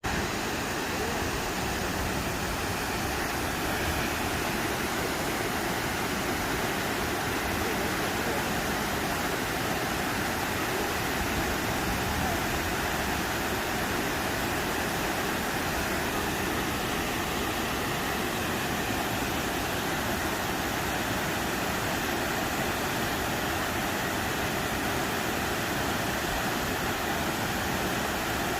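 River water flowing and rushing over rocks: a steady, unbroken wash of noise.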